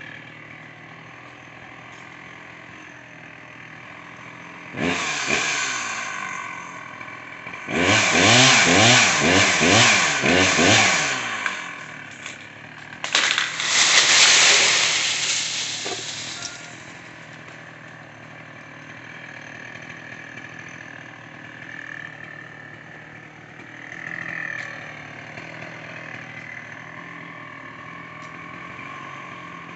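Husqvarna 61 two-stroke chainsaw revved in three bursts, about five, eight and thirteen seconds in, the middle one wavering up and down in pitch and the last one noisier, without a clear pitch. A fainter steady hum runs underneath between the bursts.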